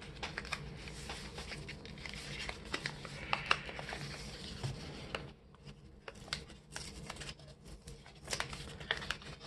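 Kraft-paper packaging sleeve being handled and worked open, crinkling and rustling with many small clicks. It is busy for about the first five seconds, then sparser.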